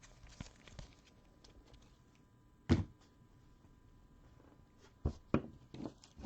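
Scattered knocks and taps of things being handled on a tabletop: one sharp knock about two and a half seconds in, then three more close together near the end, with faint small ticks between.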